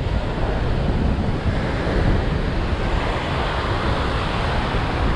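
Ocean surf washing on the beach, a steady rushing noise, with wind rumbling on the microphone.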